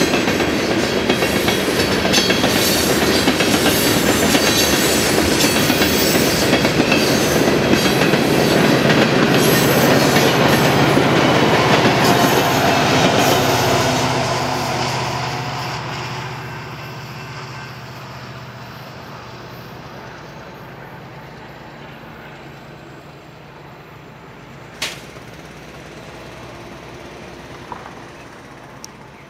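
A Union Pacific freight train's cars rolling past with a loud, steady roar of wheels on rail. About halfway through the sound fades away to a faint rumble. A single sharp click comes near the end.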